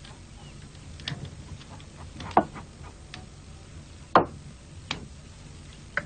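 A handful of sharp light knocks and clicks at uneven intervals, the two loudest in the middle, over a low steady room hum.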